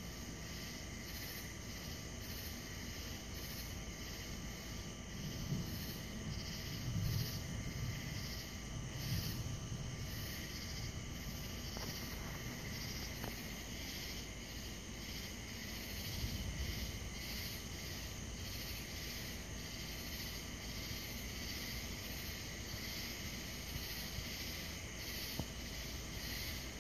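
A chorus of night insects, pulsing about twice a second over a steady drone. A few low rumbles of distant thunder come between about five and ten seconds in, with another around sixteen seconds.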